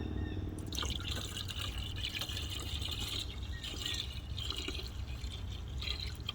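Premixed antifreeze pouring from a jug into the truck's cooling system, gurgling as it fills, starting about a second in.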